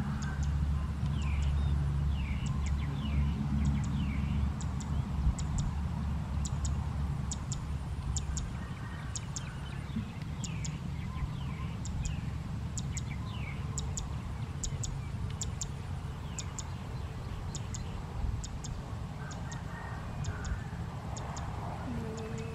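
Birds calling outdoors: repeated short high chirps throughout and a few falling whistled notes in the first few seconds, over a low steady rumble that eases about halfway through.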